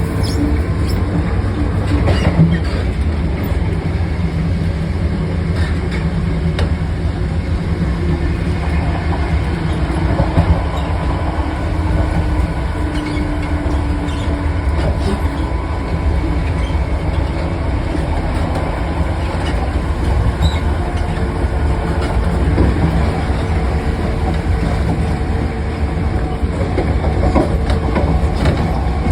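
Diesel engine of a Class 43 HST power car running under power: a steady, loud, low drone that holds even throughout, with the running noise of the moving train.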